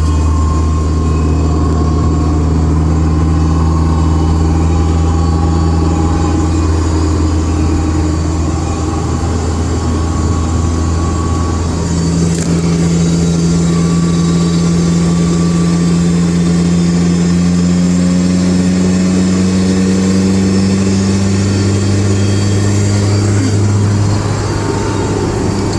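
Honda S2000 (AP1) on the move, its 2.0-litre four-cylinder engine running steadily with a consistent whine above it that climbs slowly in pitch as the car gathers speed. The owner cannot tell whether the whine comes from the differential or the transmission.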